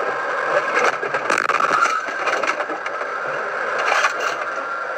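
Car dashcam audio from inside a moving car: steady road and engine noise with frequent short clicks and rattles.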